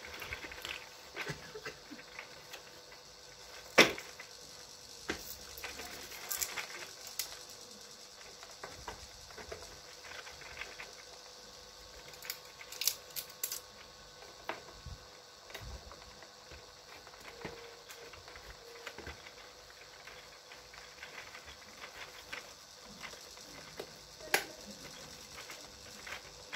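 Plastic parts of a baby walker being handled and fitted by hand: scattered small clicks and knocks, with a sharp click about four seconds in and another near the end.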